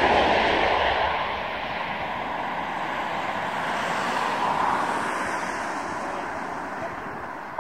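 Jet noise from a Eurofighter Typhoon's twin EJ200 turbofan engines as the fighter banks away after a low pass. It is loudest at the start and fades steadily, with a slight swell about four and a half seconds in.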